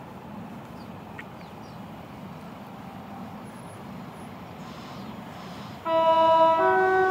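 Approaching passenger train sounding its two-tone horn about six seconds in, a low note that steps up to a higher one, over a faint steady background rumble.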